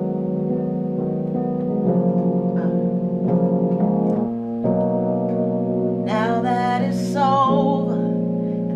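Slow piano chords played on an electronic keyboard, each held for a second or two before changing. About six seconds in, a woman's singing voice joins with vibrato.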